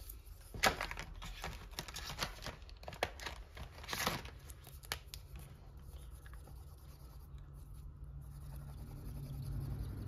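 Brush-tip marker strokes scratching and scrubbing across a thin plastic sheet, with light crinkling of the plastic: many quick strokes for the first few seconds, then quieter. A faint low hum grows near the end.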